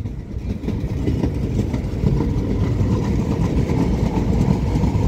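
Tyne and Wear Metrocar train (units 4013 and 4068) moving along the platform: a steady low rumble of wheels and traction equipment, getting a little louder about two seconds in.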